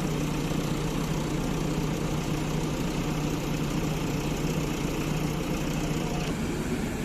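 Diesel engine of a backhoe loader running steadily at low revs, an even low hum.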